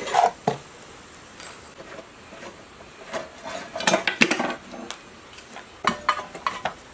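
Metal clinks and clatters of hand tools and small generator parts being handled: a few sharp knocks at the start, a busier cluster of clinks around the middle, and more near the end.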